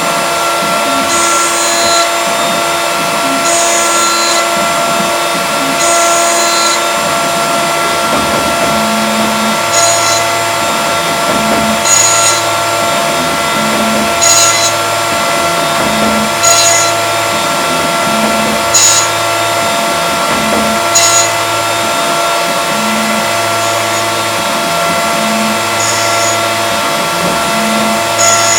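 CNC milling machine running a job: a steady high spindle whine, with a pattern of cutting passes repeating about every two seconds.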